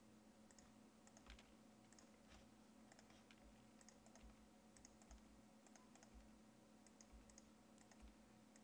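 Faint clicks of a computer keyboard and mouse, a few presses a second: the G key being struck over and over and mouse clicks placing vertices. A low steady hum runs underneath.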